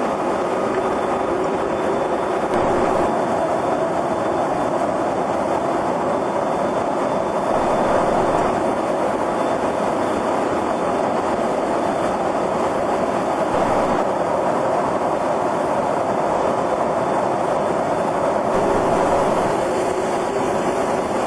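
Steady, loud rushing noise inside a freighter aircraft's cargo deck in flight, an even roar of engines and airflow through the airframe with small swells in level.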